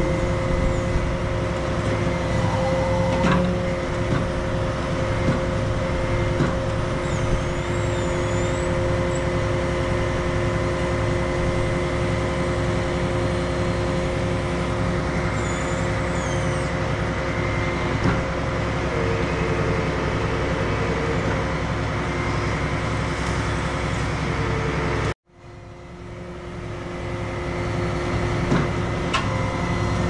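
Engine of a truck-mounted tree-removal crane running steadily: a constant drone with a steady whine over it. The sound cuts out abruptly about 25 seconds in and swells back up over a few seconds.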